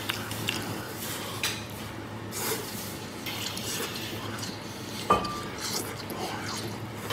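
Eating at a table: chewing and slurping a strip of stewed vegetable off chopsticks, with light clinks of chopsticks on a bowl. One sharper, ringing clink comes about five seconds in.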